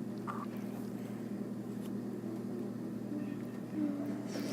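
A steady low hum, with a few faint, soft short sounds over it.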